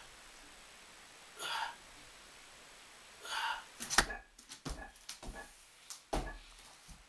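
A man breathing hard while doing handstand push-ups against a wall, a short forced breath about every two seconds. From about four seconds in, a string of knocks and thumps as his feet come down the wall to the floor.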